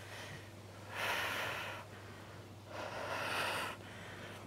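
A woman breathing hard from exertion while holding a side plank: two long, forceful breaths about two seconds apart.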